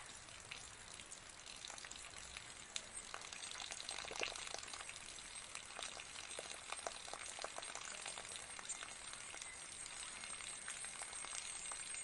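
Tabletop jug-and-pot fountain: a thin stream of water pours from a tilted jug into a pot and trickles into the basin below, a steady faint trickle full of small splashes and drips.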